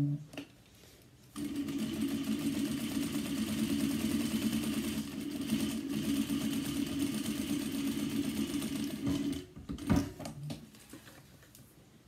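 Sewing machine running steadily for about eight seconds as it topstitches a row along a folded fabric bag handle, then stopping; a sharp knock follows about a second later.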